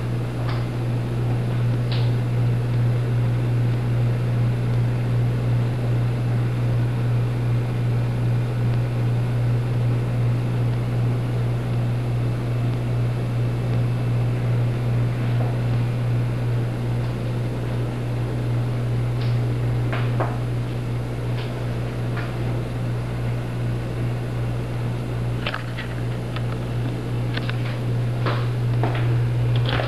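A steady low mechanical hum, like a motor or fan running, with a few light clicks and knocks about two-thirds of the way through and again near the end.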